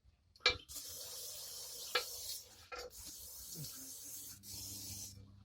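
Aerosol lubricant spray can hissing in two long bursts, coating the bolt threads so the nuts go on more easily, with a few sharp clicks of handling in between.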